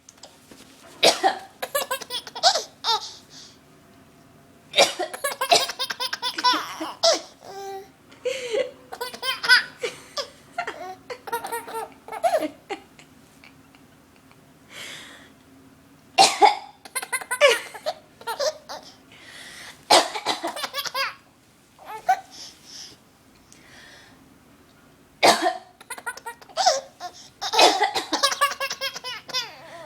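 A woman coughs again and again, and after each cough a baby breaks into laughter, in about five or six rounds.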